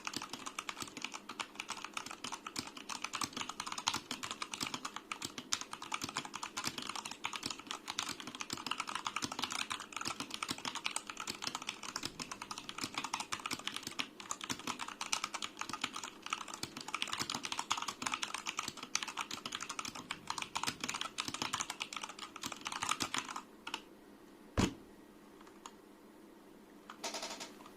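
Fast, continuous typing on a Royal Kludge RK61 60% mechanical keyboard with Royal Kludge Red linear switches, a dense patter of keystrokes. The typing stops about 23 seconds in, followed by one louder knock and a few more keystrokes near the end.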